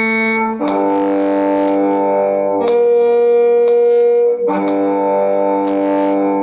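Bowed violin-family instrument playing sustained double stops in half notes, the pair of notes changing about every two seconds, with faint metronome clicks ticking through the notes.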